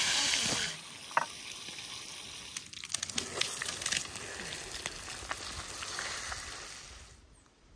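Fish frying in hot oil in a pan over a campfire: a loud sizzle that drops off sharply about a second in, then a quieter sizzle with spitting crackles that fades away near the end.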